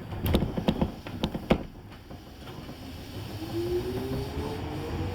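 Electric commuter train pulling away from a station: a few sharp clunks, then the traction motor's whine rising in pitch as it accelerates.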